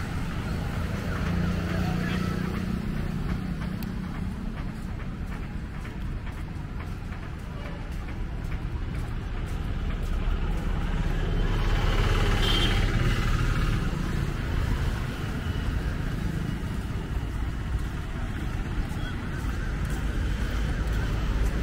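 Road traffic running steadily beside the walkway, with a low rumble, and one vehicle passing louder about twelve seconds in.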